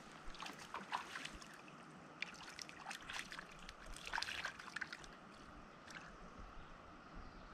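Small, irregular splashes of hands working in shallow creek water, grabbing for a small brook trout, over a faint, even babble of the stream.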